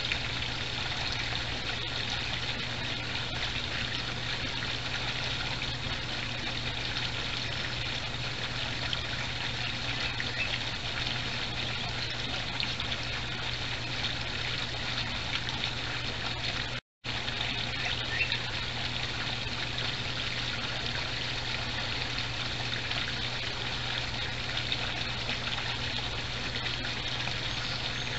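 Backyard koi pond's water feature trickling and splashing in a steady stream, with a steady low hum under it. The sound cuts out completely for a split second a little past halfway.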